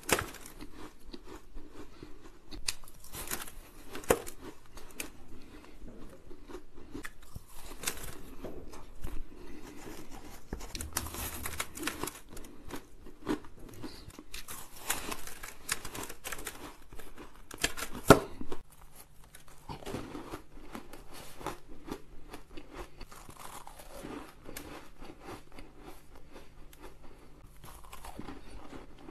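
Close-miked biting and chewing of fluffy shaved ice: a run of crisp crunches and squeaky compressions, with the loudest crunch about two-thirds of the way through.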